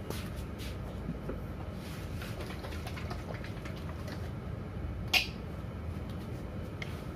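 Steady low background rumble with a few faint clicks and one sharp click about five seconds in.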